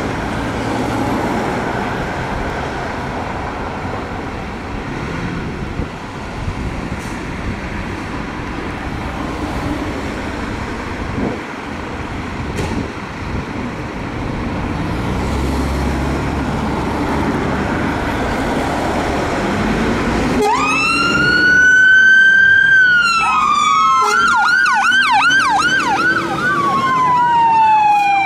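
Fire engine diesel engines running with a low rumble as the appliances turn out. About twenty seconds in, an electronic siren starts: a wail that rises and falls, a few seconds of fast yelp sweeps, then slow falling and rising wails again.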